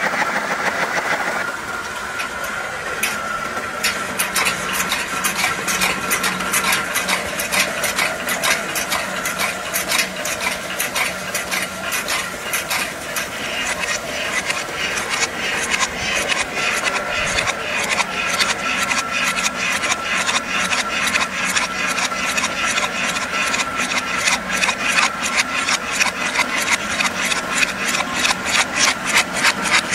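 A machine running with a steady hum, joined about three seconds in by a fast, regular clatter of knocks.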